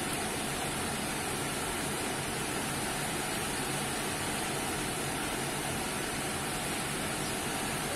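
Beef cubes sizzling in hot fat in a pot as they brown, a steady even hiss.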